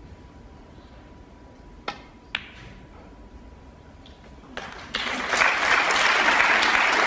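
Two sharp clicks of a snooker shot, about half a second apart: the cue tip striking the cue ball, then the cue ball hitting the red. About five seconds in, the audience breaks into loud applause as the red is potted.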